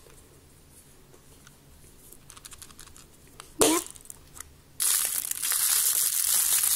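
Clear plastic toy capsule handled with faint clicks, then a sudden loud snap with a short squeak about halfway through as it is opened. From about two-thirds of the way in, a plastic bag holding the model kit crinkles loudly as it is handled.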